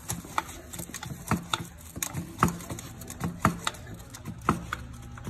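Steel combination wrench clinking against the downpipe flange nuts as it is fitted, turned and refitted: about a dozen sharp metal clicks, often in pairs, over a faint steady low hum.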